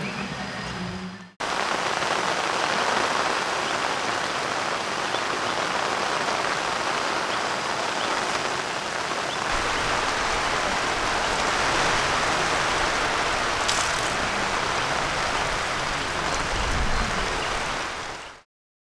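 Heavy rain falling steadily on the tent and tarp.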